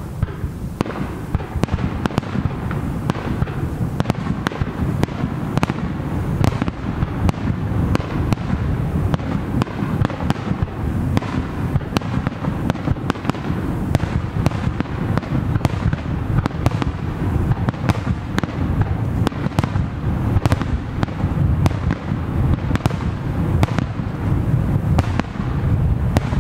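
Aerial firework shells bursting in quick succession: a dense run of sharp bangs and crackles, several a second, over a continuous low rumble.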